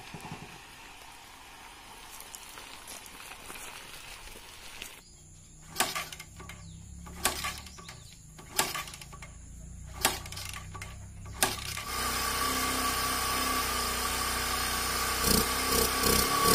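Bajaj Discover 100's single-cylinder four-stroke engine being cold-started after years of standing. A run of sharp knocks about every second and a half comes over a low rumble. About two-thirds of the way in the engine catches and runs steadily, and it rises in speed near the end.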